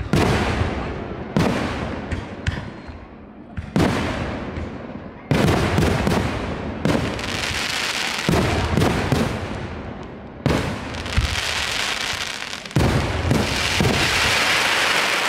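Aerial firework shells bursting one after another in loud booms, roughly every one to two seconds, with long stretches of dense crackling about halfway through and again near the end.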